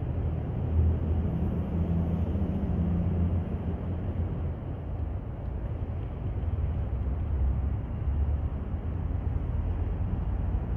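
Low, steady rumble of background noise in an open-sided concrete multi-storey car park, with no distinct events standing out.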